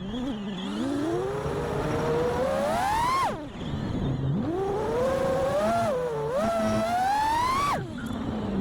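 A 5-inch FPV quadcopter's brushless motors (2207, 1960kv) and three-blade props whining as the throttle is pushed up. The pitch climbs twice in long rising sweeps and drops away sharply each time the throttle is cut.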